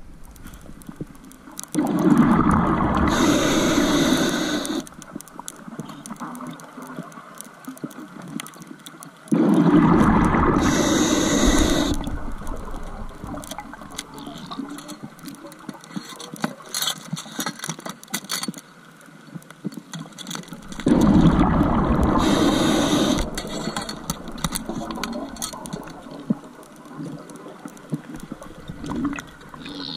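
Scuba diver's breathing underwater: three long bursts of exhaled bubbles rushing and gurgling from the regulator, spaced roughly ten seconds apart, with faint crackling and clicking between breaths.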